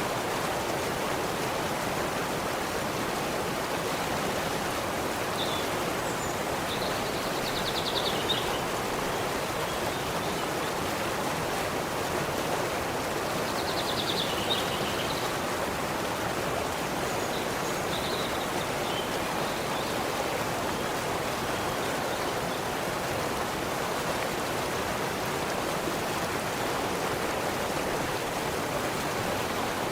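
A stream's water running steadily. A bird gives a short high trill three times over it.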